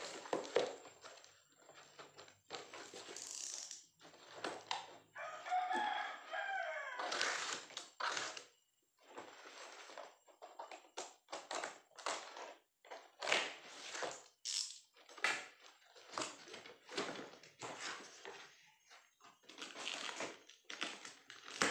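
Cardboard package being opened by hand: packing tape cut and torn, cardboard flaps scraped, pulled and folded, in a string of short rips and rustles. About five and a half seconds in, a pitched, wavering squeal lasts over a second.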